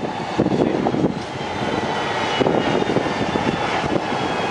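Bombardier Q400's two Pratt & Whitney Canada PW150A turboprop engines running at low taxi power, a steady propeller drone with thin high whining tones from the turbines.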